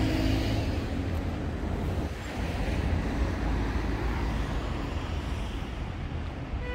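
Steady low rumble of road traffic mixed with wind buffeting the microphone.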